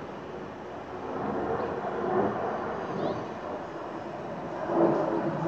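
Airplane flying overhead: a steady engine rumble that grows louder toward the end, with a few faint high chirps.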